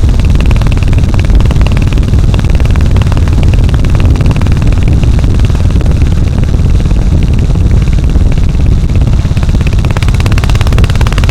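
Royal Enfield Hunter 350's single-cylinder engine and exhaust running steadily and loudly, holding a fairly even speed with no sharp revs.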